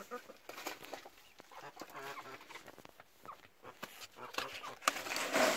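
Domestic hens clucking softly in a coop, with scattered small scratching clicks. A louder rustle comes in near the end.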